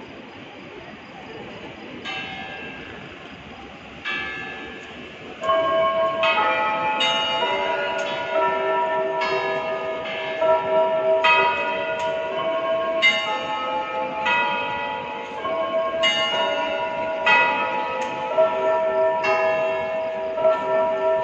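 Church bells ringing: a few separate strokes at first, then about five seconds in a full peal starts, strokes coming about once a second with long ringing tones at several pitches overlapping.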